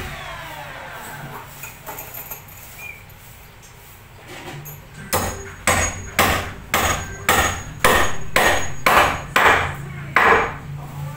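Hammer blows, about eleven at an even pace of roughly two a second, starting about five seconds in.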